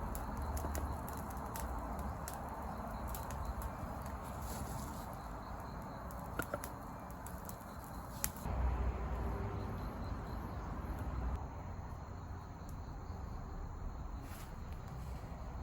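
Campfire crackling: a steady soft hiss with scattered sharp pops, a few louder ones about six to eight seconds in.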